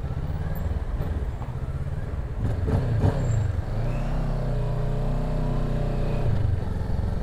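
Kawasaki ER-6n motorcycle's parallel-twin engine running on the move through a junction and a turn, with wind and road noise. Its note shifts about three seconds in, then holds steady.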